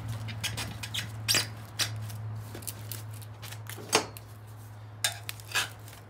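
Metal tire irons clinking and tapping against a motorcycle wheel rim as a rear tire is worked on. They make several separate sharp clicks, the loudest about four seconds in, over a steady low hum.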